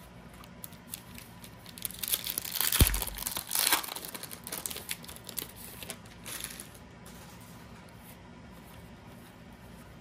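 A trading card pack's wrapper being torn open and crinkled, from about two to four seconds in, with a short soft thump partway through. A brief rustle follows near six seconds, then quieter handling of the cards.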